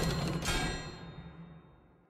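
Outro music stinger: a deep, timpani-like impact hit with a second hit about half a second in, ringing on a low tone and fading out over about a second and a half.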